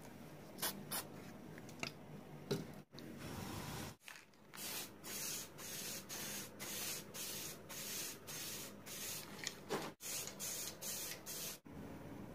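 Aerosol spray-paint can spraying in a quick run of short hissing bursts, about two a second, preceded by a few sharp taps.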